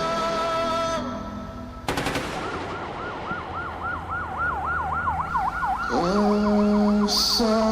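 Emergency-vehicle siren warbling rapidly up and down, its sweeps quickening after a few seconds, entering just after a sudden burst of sharp cracks about two seconds in. Held music notes fade out before the cracks and come back in under the siren about six seconds in.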